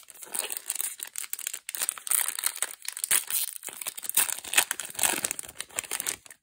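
Foil wrapper of a Magic: The Gathering draft booster pack crinkling and tearing as it is ripped open by hand: a dense, irregular run of crackles that stops abruptly at the end.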